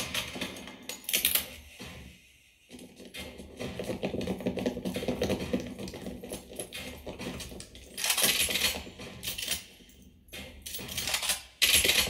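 Movie gunfight sound played through a Klipsch RP-450C center channel speaker alone: a dense run of gunshots and clinking metal, with louder bursts about two-thirds of the way in and near the end.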